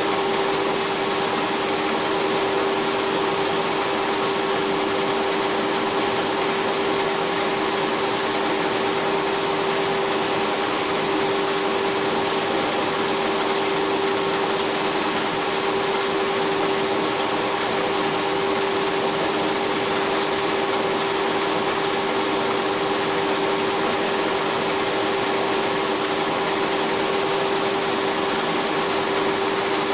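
A 1K62 screw-cutting lathe running steadily: an even mechanical noise with a constant whine.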